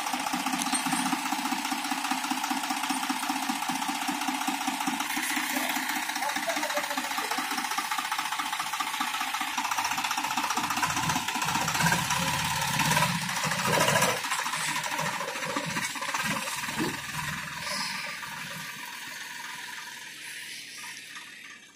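Swaraj 855 tractor's three-cylinder diesel engine running, growing fainter over the last few seconds as the tractor moves off.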